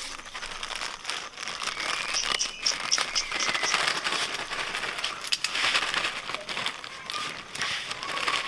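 Plastic biscuit packet crinkling and rustling as it is handled, with small crackles and clicks throughout.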